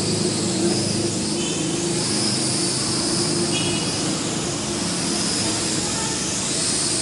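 L6036 quadcopter's small electric motors and propellers running steadily in flight, a continuous buzzing drone of spinning rotors.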